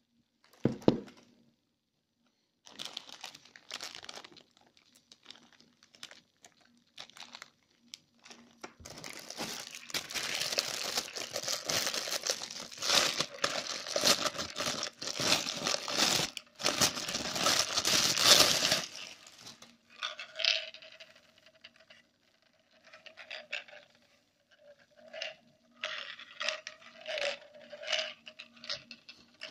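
Clear plastic packaging bag crinkling and rustling as it is pulled off and handled around a full-face snorkel mask: scattered crackles, then a long stretch of continuous, louder crinkling in the middle, then intermittent crackles again. A single thump sounds about a second in.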